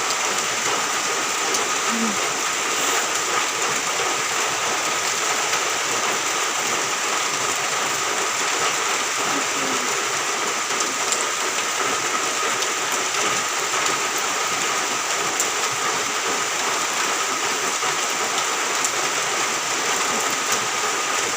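Steady rain falling and pattering on surfaces, an even, unbroken hiss.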